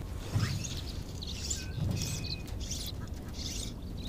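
Birds chirping and calling in short repeated bursts, with two low thumps, the first about half a second in and the second near two seconds.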